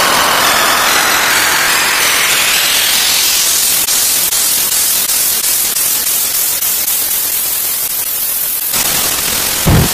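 Loud synthesized white-noise sweep, as in an electronic music build-up: a rising hiss over the first few seconds, then a steady hiss with faint regular ticks. The high end cuts off abruptly near the end, and a deep kick-drum thump lands just as it closes.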